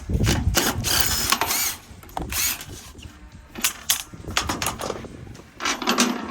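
Irregular metal clicks and clanks from hand work on steel C-channel framing parts and bolts, denser in the first second and a half.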